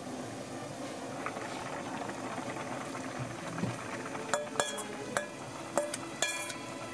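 Spicy broth boiling in a pan, bubbling steadily. About four seconds in come several sharp metallic clinks and scrapes with a short ring, as a stainless steel bowl knocks against the pan's rim while ingredients are tipped in.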